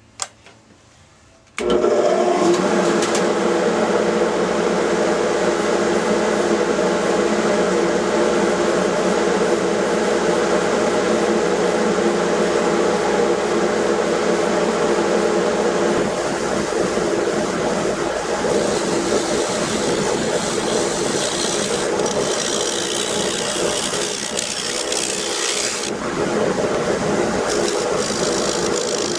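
Wood lathe switched on about a second and a half in, then running steadily with its motor hum. A gouge cuts the spinning spalted oak bowl, adding a hissing sound of shavings for several seconds in the second half.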